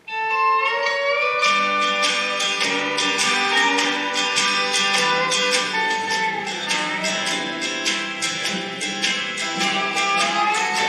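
Instrumental introduction to a country gospel song, starting abruptly: a held melody line over steady strummed guitar that comes in about a second and a half in.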